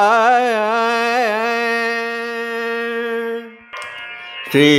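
Devotional chanting: a sung voice holds one note for about three and a half seconds, wavering at first and then steady, before breaking off. After a brief lull, a lower voice starts the next chanted phrase near the end.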